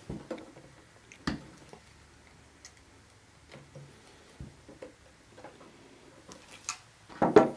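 Tongue-and-groove pliers clicking and tapping as they squeeze a barbed two-pin connector into the end of LED neon flex: scattered sharp clicks, a loud one about a second in, and the loudest cluster of knocks near the end.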